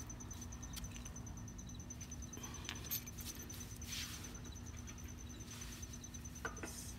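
Faint clicks and light scrapes of a steel retaining pin and brake pads being handled at a disc-brake caliper, a few scattered over several seconds. A steady, high, fast-pulsing chirp goes on underneath.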